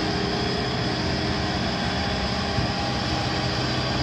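Construction machinery engine running steadily, with a constant low hum.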